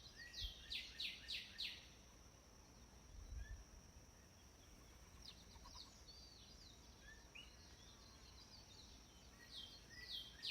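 Faint birdsong: a songbird gives a run of about five quick, loud, downward-sweeping chirps at the start and again near the end, with scattered softer chirps between. A steady high-pitched whine runs underneath.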